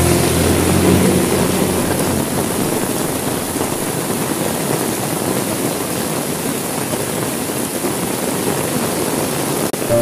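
Heavy rain, a steady even hiss. Faint music notes fade out a second or two in, and there is a brief dropout near the end.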